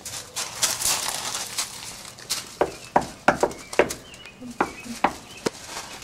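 Knuckles knocking on a door, a run of sharp knocks about half a second apart over roughly three seconds, after a stretch of rustling.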